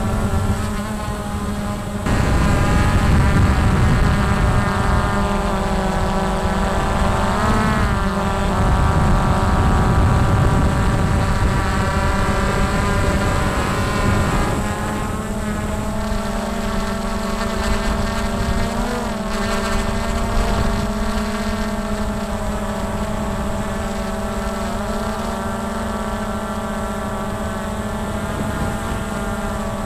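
Multirotor drone's electric motors and propellers whining in flight, a steady stack of tones whose pitch swells briefly a few times as the throttle changes, with more low rumble in the first half.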